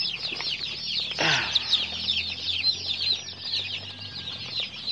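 A brood of four-day-old Rhode Island Red and Black Australorp chicks peeping non-stop: many short, high, falling cheeps overlapping into one continuous chorus.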